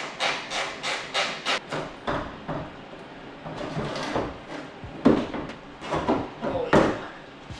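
A series of sharp knocks, clicks and clunks of hand tools and metal as a BMW E46's hood is unbolted and lifted off: a quick run of clicks in the first second or so, then more scattered clunks.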